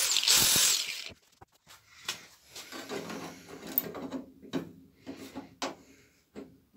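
Angle grinder working the steel edge of a car door, which stops about a second in. Then come light clinks, knocks and scrapes as a sheet-steel patch is handled and held against the door.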